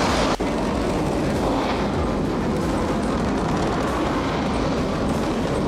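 Loud, steady deep rumble of a simulated rocket launch played over loudspeakers, with a brief dropout about half a second in.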